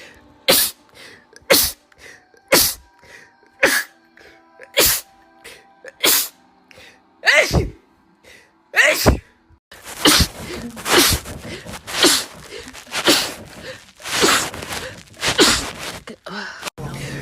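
Rapid sneezing, one sneeze after another about once a second, with the sneezes coming closer together in the second half. Faint background music sits under the first half.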